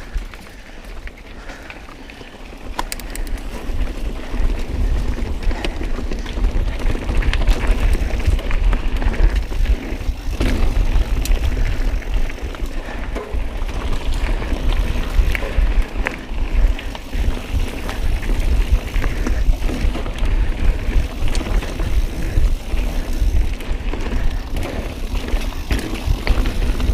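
Mountain bike rolling over a rocky trail: tyres rumbling and clattering over rocks and the bike rattling, with wind buffeting the microphone. It gets louder about three seconds in.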